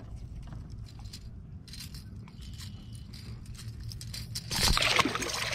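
Light metallic clicks and rattles of pliers and a lure's hooks as the lure is worked free from a small bass's mouth, over a steady low rumble. A louder, noisy rustle comes about four and a half seconds in.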